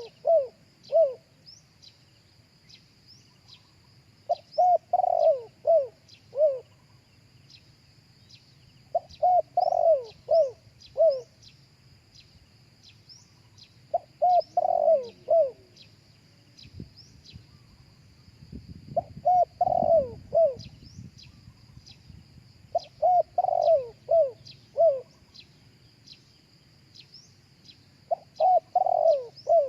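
Spotted dove cooing: a phrase of four or five short falling coos, repeated about every four to five seconds.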